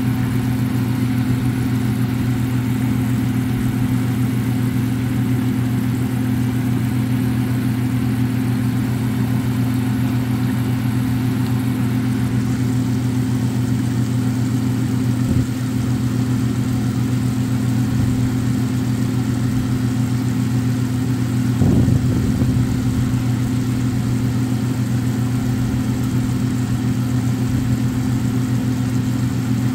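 Steady low mechanical hum, with a short knock about two-thirds of the way through.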